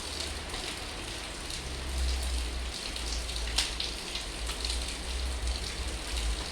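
Steady heavy storm rain falling, with scattered drop ticks and one sharper tap about three and a half seconds in, over a low rumble.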